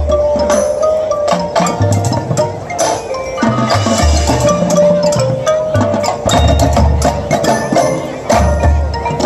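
High school marching band playing its field show: held band notes with sharp percussion strokes and mallet keyboards, over heavy low notes that come in pulses.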